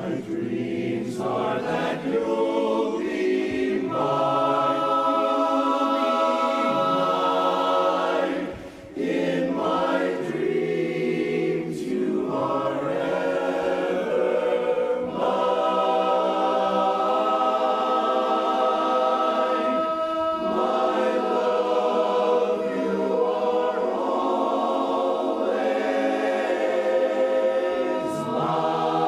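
Barbershop chorus singing a cappella in close harmony, holding long sustained chords, with a brief break about nine seconds in.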